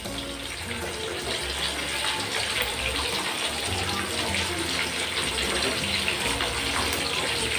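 Breaded pork chops deep-frying in hot corn oil in an aluminium wok: a steady, dense sizzle and crackle.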